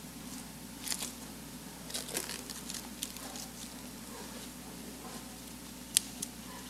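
Clear plastic wrap crinkling and crackling under a hand as it is pressed and smoothed around a horse's hoof over a setting adhesive patch. There are scattered short sharp ticks, and the loudest is a single click about six seconds in.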